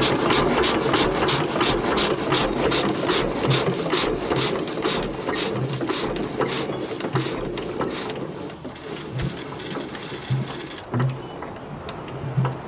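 1941 Witte single-cylinder diesel generator set coasting down after shutdown. Its heavy flywheels keep it turning, and a rhythmic mechanical clatter with a short high chirp on each turn slows steadily and fades as the engine winds down.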